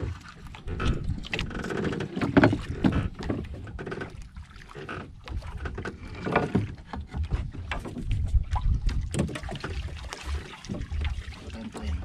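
Irregular knocks and scrapes of a blade cutting a squid into bait on a wooden paddle blade aboard a small boat, over a steady low rumble.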